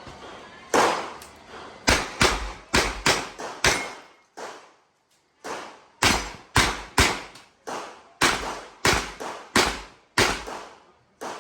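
Revolver gunfire during an IPSC practical-shooting stage: quick strings of shots about a third of a second apart. A pause of about two seconds comes about four seconds in, then the shooting resumes.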